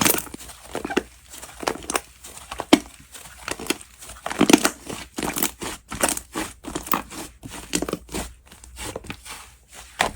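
Slime being squished and stretched by hand, giving a dense run of irregular crackles and pops.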